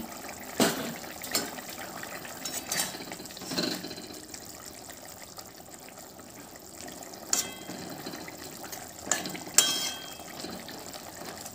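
A fish curry broth with bottle-gourd greens bubbling at a boil in a metal kadai. A metal spatula clinks and scrapes against the pan several times, with a couple of short metallic rings in the second half.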